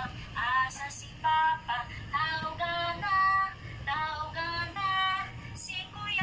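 A woman singing a learning song for young children in held notes with short breaks between phrases, with light music behind.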